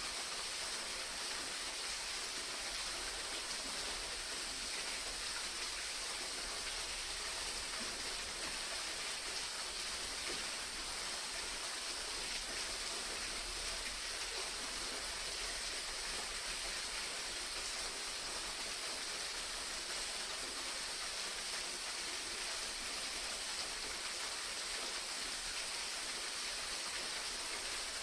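Waterfall: a steady, unbroken rush of falling water, hissy and even.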